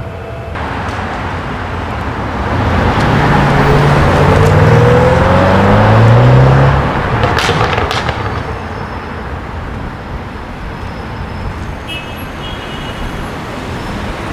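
ABT-tuned Audi RS7-R's twin-turbo V8 accelerating hard, its exhaust note rising in pitch for a few seconds and then fading into traffic noise. There is one sharp crack just as it fades.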